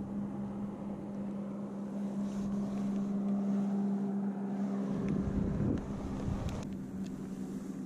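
A boat engine droning steadily at one pitch, with wind buffeting the microphone about five seconds in.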